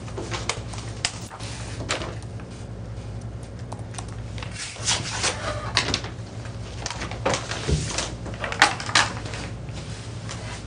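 Paper rustling and irregular clicks as a bid envelope is opened and its pages are handled, busiest in the second half, over a steady low hum.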